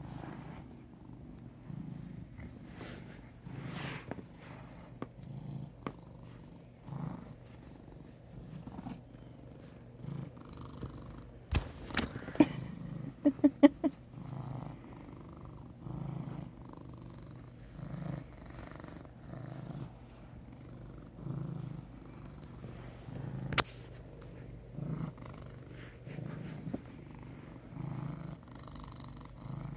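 Brown tabby cat purring steadily, the purr swelling and fading with each breath about every one and a half to two seconds. About halfway through, a short cluster of sharp clicks and knocks, the loudest sounds, with one more click later on.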